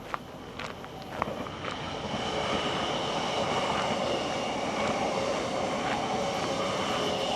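A train running past: a steady rail rumble that builds up over about the first two seconds and then holds, with thin whining tones from the wheels on the rails.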